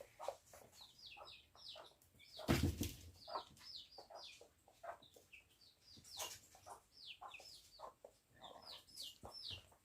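Domestic chicks peeping: a steady stream of short, high chirps, each falling in pitch. About two and a half seconds in there is a brief louder rustle.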